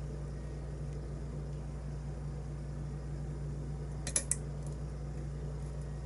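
A few small, sharp metallic clicks about four seconds in from the pick and tension wrench working the pins inside a brass K1 Locks 'Uncle Billy' challenge lock, over a steady low hum.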